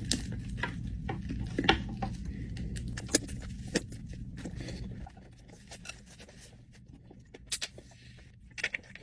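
Scattered light clicks and taps from eating and handling food, over a low steady hum that stops about five seconds in.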